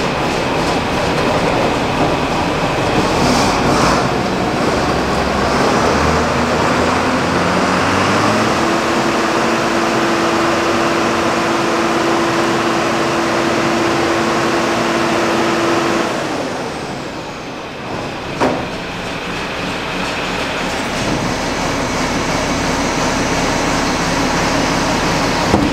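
Empty vertical feed mixer wagon driven by a tractor's PTO, its screw auger turning over on a test run to check that nothing rubs. The machine's tone steps up in pitch about six to eight seconds in as it comes up to speed. About sixteen seconds in the sound drops as it slows, with a single clunk a couple of seconds later.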